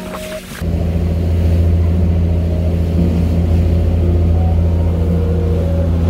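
Fishing boat's engine running steadily under way, a deep constant drone. It starts abruptly about half a second in, after a brief rush of water along the hull.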